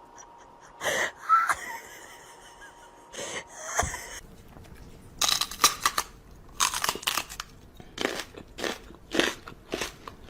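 Crunchy chewing: a run of crisp bites, about two to three a second, starting about halfway through, after a few scattered crunches and rustles.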